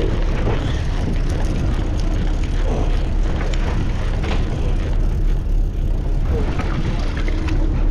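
Charter fishing boat's engine running with a steady low hum, under a hiss of water along the hull and scattered light clicks.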